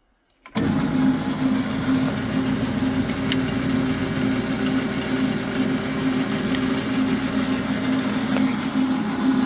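Clausing 4914 metal lathe running under power, driven by its 1 hp three-phase motor: a steady hum of motor, belt and gearing that starts abruptly about half a second in and holds an even pitch, with a couple of faint ticks.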